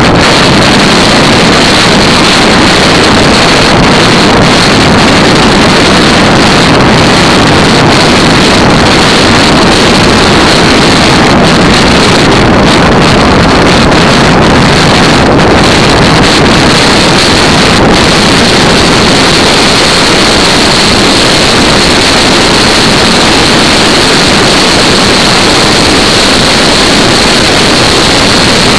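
Loud, steady wind noise buffeting the microphone of a camera mounted on a racing bicycle moving at about 40 to 50 km/h.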